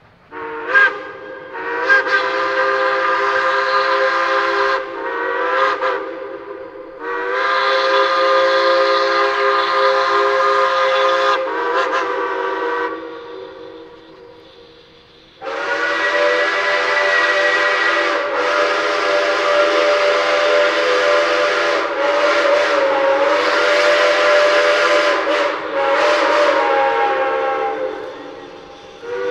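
Several steam locomotive whistles blowing together, a chord of several tones, in long blasts. A few blasts come in the first half, including a short one about six seconds in, then one long blast of about twelve seconds after a pause.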